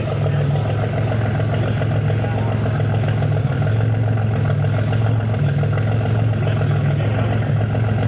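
Buick turbocharged 3.8-litre V6 engine running steadily with a low, even hum and no revving.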